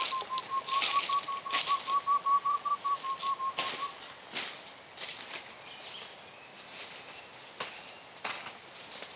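Boots crunching and rustling through dry leaf litter, loud at first and then scattered and fainter, under a steady whistled note held at one pitch with a slight pulse, which stops about four seconds in.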